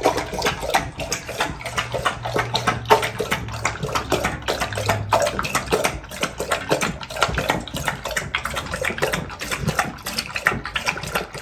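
American Staffordshire Terrier lapping water from a stainless steel bowl in quick, continuous laps.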